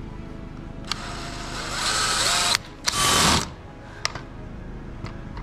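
DeWalt XR cordless drill boring a wood bit into a pressure-treated timber post. After a click about a second in, the drill runs for about a second, cuts off abruptly, then gives a second, shorter burst.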